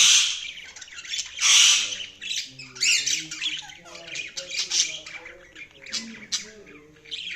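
Budgerigars chirping and squawking in harsh, scratchy calls, the loudest about a second and a half in, followed by a softer, wavering warble of chatter.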